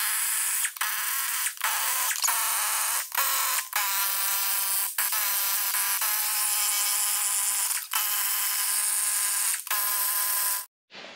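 Pneumatic impact wrench running nuts off the bolts of a two-piece military split-rim wheel, in about ten trigger bursts, two of them a few seconds long, stopping shortly before the end. The nuts are already broken loose, so the wrench spins them off freely.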